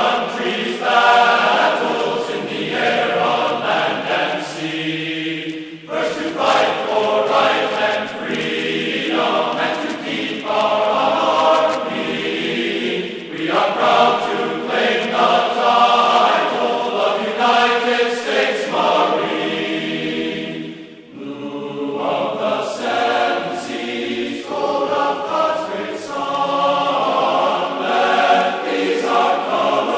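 Background music of voices singing together in a chant-like choir, in phrases of a few seconds with short breaks between them.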